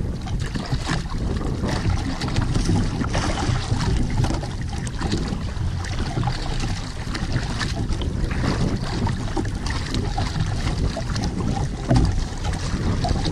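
Wind buffeting the microphone over choppy sea water slapping and splashing against a small outrigger boat's hull, with a short louder burst near the end.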